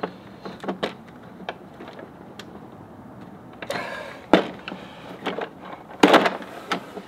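Small plastic parts of a disassembled cordless electric ratchet being handled: scattered light clicks and plastic rustling, with louder handling noises about four seconds in and again about six seconds in.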